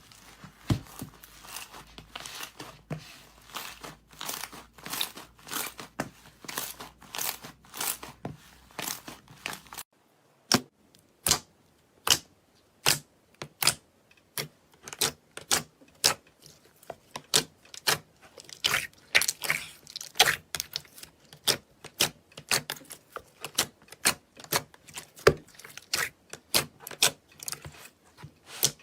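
Slime being squeezed and pressed, giving a run of sharp crackling clicks and pops. About ten seconds in the sound changes abruptly to separate, spaced pops, roughly one or two a second.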